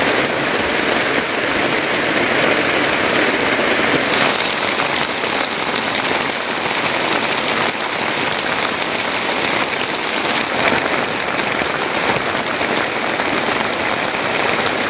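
Heavy rain pouring steadily onto a plastic tarp: a loud, dense, even hiss of drops.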